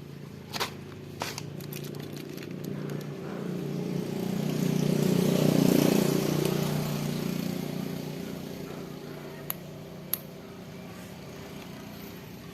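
A motor vehicle passes by, its noise swelling to a peak about halfway through and fading away, over a steady hum, with a few sharp clicks near the start and end.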